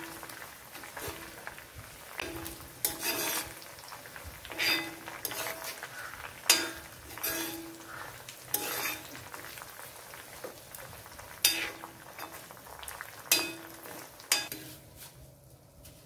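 Steel spoon stirring henna leaves frying in coconut oil in a cast-iron kadai. The spoon scrapes and clinks against the pan every second or two over a faint sizzle of the oil, and the stirring stops near the end.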